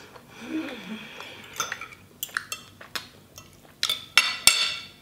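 Metal fork clinking and scraping on a plate of pasta: several sharp clinks, the loudest cluster near the end.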